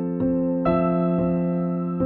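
Background music: keyboard notes struck about twice a second over a held low tone.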